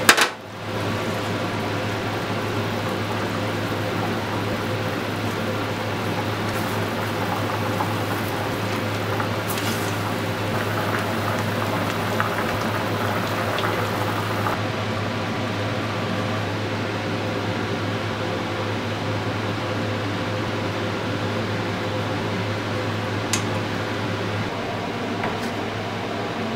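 Soy-sauce braising liquid boiling hard, uncovered, in a pressure-cooker pot around rolled pork: a steady bubbling over a steady low hum that stops near the end. A brief sharp click right at the start.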